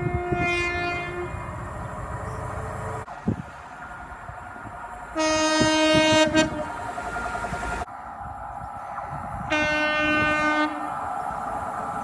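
Three separate blasts of a High Speed Train (Class 43 power car) horn, each a single held note lasting about a second, near the start, about five seconds in and about nine and a half seconds in. The low rumble of the approaching train runs beneath them.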